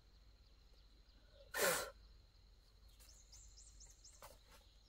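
A short, loud puff of breath about one and a half seconds in. Near the end a bird gives a quick run of about five high chirps, and there are a couple of faint clicks.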